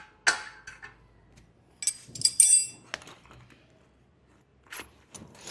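Metal spanners clinking and jangling against each other in a few separate strikes, with a bright ringing cluster about two seconds in.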